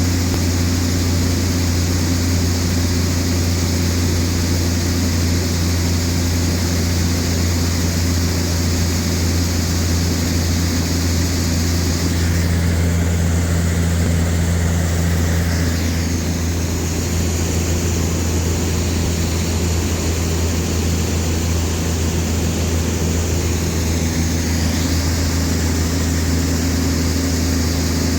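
Combine harvester running steadily at working revs, its engine and threshing gear giving an unbroken low drone.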